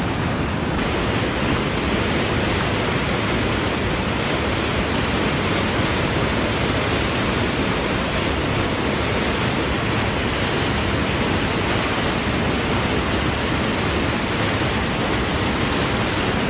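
Waterfall: a loud, steady rush of falling water, unbroken throughout.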